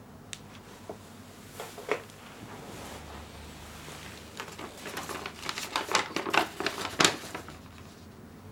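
Paper rustling and crackling as a letter is opened and handled: a few light clicks at first, then a quick run of crinkles in the second half, loudest near the end.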